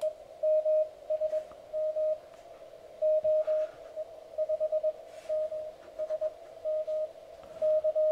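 Morse code (CW) signal from another amateur station, received by an MTR-3B pocket transceiver and played through a small loudspeaker. A single mid-pitched tone is keyed in dits and dahs over faint band hiss. The operator cannot tell whether it is someone calling CQ or one side of a contact.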